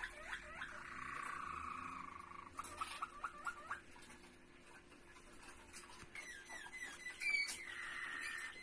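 Canaries singing: quick runs of the same short sweeping note repeated several times a second, then a fast rolling trill. Their song is quieter in the middle and picks up again with new phrases near the end.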